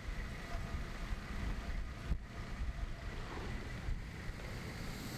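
Long-tail boat running under way: a steady low rumble, with wind buffeting the microphone.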